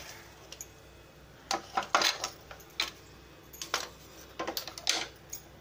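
Metal cookware and utensils clinking and knocking on a gas stove: about a dozen short, sharp clinks from about a second and a half in, as the emptied non-stick kadai is handled on the burner.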